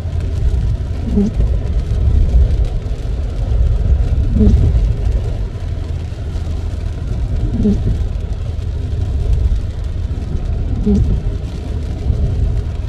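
Steady low road and engine rumble inside a car's cabin, with the windshield wiper blades making a short dragging groan on each sweep, four times at about three-second intervals. The blades are stiff on the glass.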